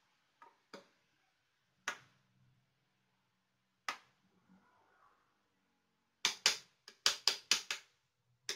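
A hand squeezing and mixing soft, oily wheat-flour dough in a bowl, making sharp wet squelches. A few come singly, then a quick run of several about six seconds in.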